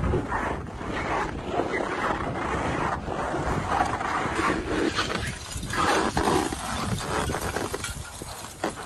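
Wind buffeting the microphone: a rushing noise, heavy in the bass, that swells and fades in gusts.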